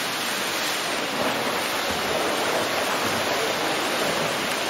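Steady splashing and rushing of water from several swimmers racing, their arm strokes and kicks churning the pool surface.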